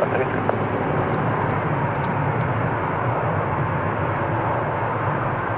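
Jet engines of a Boeing 777 airliner running steadily on short final, flaring just before touchdown: a steady, even noise.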